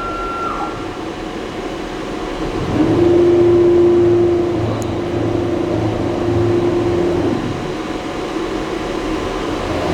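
CNC router axis drive motors whining as the axes are jogged: a high whine that drops off about half a second in, then a steady lower whine with a pulsing low hum that starts nearly three seconds in and stops about four and a half seconds later, over a steady machine hum.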